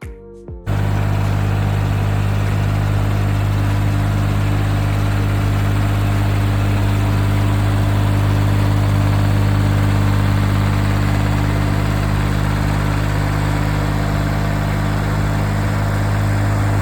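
Diesel engine of heavy equipment running steadily at an even speed, cutting in abruptly under a second in after a moment of music.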